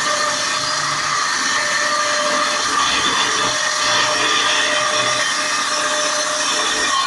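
Sawmill saw running steadily at a loud, even level, a steady whine with a few held tones over a broad noise.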